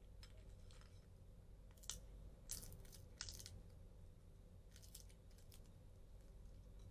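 Raccoon eating. A handful of faint, short crunches come in the middle as it chews, over a faint steady low hum.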